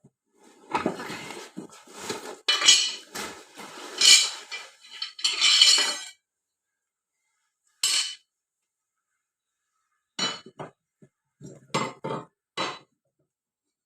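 Steel mower blades and a spanner clinking and clattering against each other, a dense run of metallic rattling for the first six seconds, then a single sharp knock and a few scattered clinks near the end.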